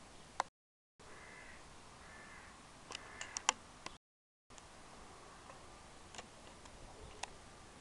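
Two short, high animal calls about a second apart, followed by a cluster of sharp clicks and taps about three seconds in. Fainter ticks follow later over a steady low hiss, and the sound cuts out completely twice for about half a second.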